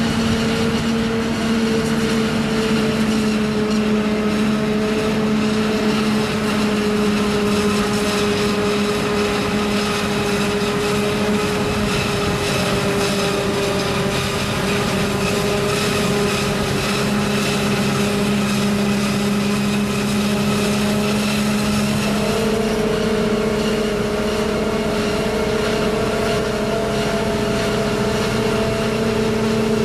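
Self-propelled forage harvester chopping standing maize, with a tractor and silage wagon running alongside: a loud, steady machine drone with a humming tone, which steps up slightly in pitch about 22 seconds in.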